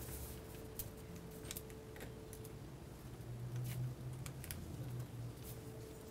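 Faint, scattered small clicks and taps from a precision screwdriver turning the side screws of an iPhone 4 a twist each to loosen them, with a low steady hum underneath.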